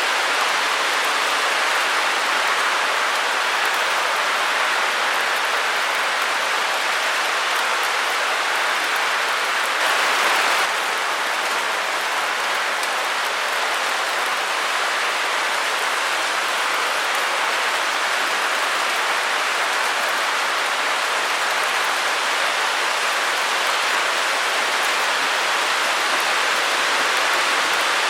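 Steady white noise: an even, unbroken static hiss with no rhythm or tones, briefly a little louder and brighter about ten seconds in.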